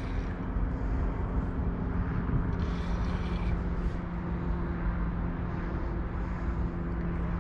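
An engine running steadily: a constant low hum with a steady rumble beneath it.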